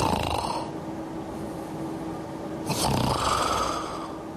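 A person snoring: two snoring breaths, the second starting a little under three seconds in.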